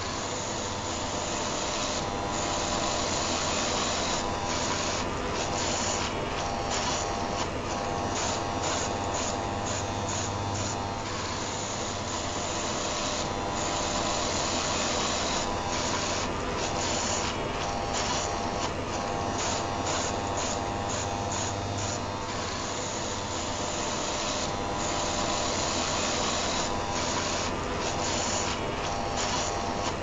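A Philips Comfortcut rotary electric shaver buzzing steadily, mixed with the steady whir of an electric fan heater. Together they make a continuous white-noise drone with a low hum underneath.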